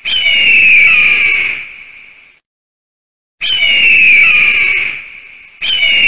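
Eagle screaming: a harsh, high call that falls in pitch, heard three times, the second after about a second of silence and the third starting near the end.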